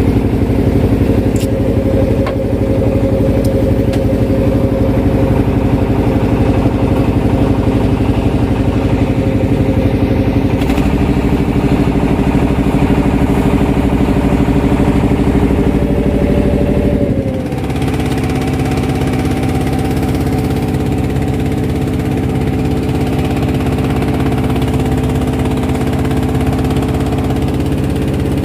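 Engine of a wooden passenger boat running steadily while under way. About 17 seconds in, the engine note changes abruptly and gets slightly quieter.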